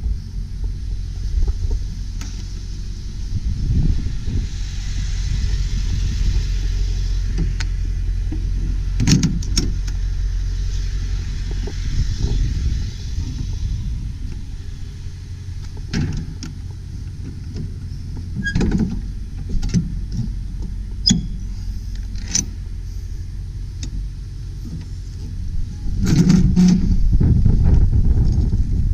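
Ford 7.3-litre Power Stroke turbo-diesel V8 idling with a steady low rumble, with scattered knocks and bumps of handling and a louder cluster of bumps near the end.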